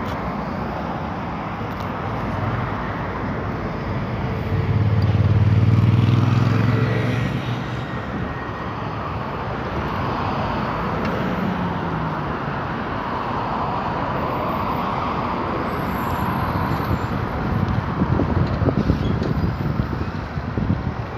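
Road traffic: a steady wash of passing car noise, with a heavier vehicle's low engine rumble swelling and fading about five seconds in.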